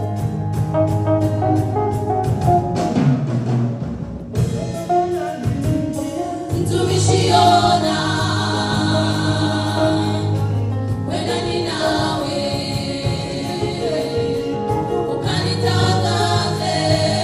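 Women's gospel choir singing together into microphones, backed by a live band with keyboard and electric guitar. The singing thins briefly a few seconds in, then comes back fuller about six seconds in.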